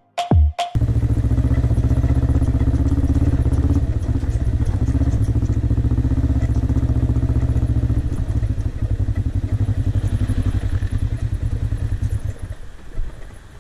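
Kawasaki ER-5 motorcycle's 500cc parallel-twin engine running steadily under way. After about eight seconds the note turns uneven and pulsing as the bike slows on a gravel track, and it fades away near the end.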